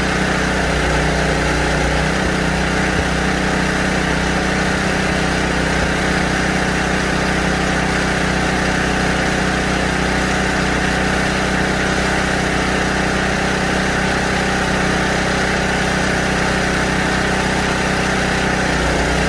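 Portable generator engine running at a steady speed.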